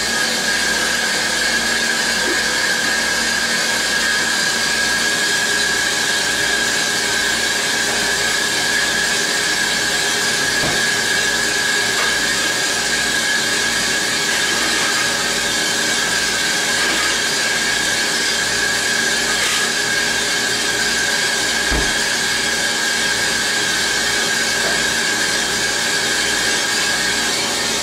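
Feima Pro 1K drum coffee roaster running early in a roast, its drum turning at about 52 RPM with a pound of beans tumbling inside and the burner lit, before the turning point. It makes a steady hiss with a steady high whine.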